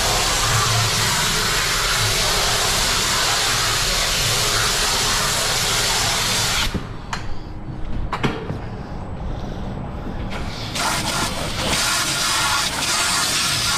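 Water jet from a handheld spray gun hissing as it sprays into a tanker compartment through the open manhole, rinsing and pushing out the last of the thick product. The hiss drops away about halfway through, with a couple of short knocks, then builds back up near the end.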